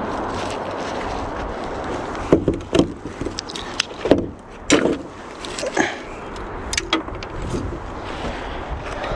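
A steady rushing noise, then a run of sharp knocks and clunks from about two seconds in, going on for some five seconds before the steady noise returns.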